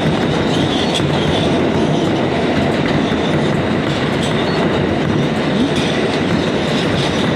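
New York City subway train on the G line running between stations, heard from inside the car: a steady loud rumble of wheels on rails with occasional faint clicks from the track and a thin steady high whine.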